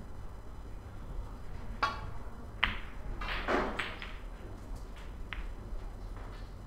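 Snooker break-off. A sharp click of the cue striking the cue ball about two seconds in is followed under a second later by a louder crack as the cue ball hits the pack of reds. Then comes a quick cluster of ball-on-ball clicks and cushion knocks as the reds scatter, with a few lone clicks after.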